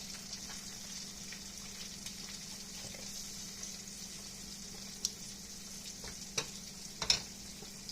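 Flour-coated chicken legs deep-frying in hot oil: a steady sizzle over a low hum, with a few sharp clicks about five, six and a half and seven seconds in, the last the loudest.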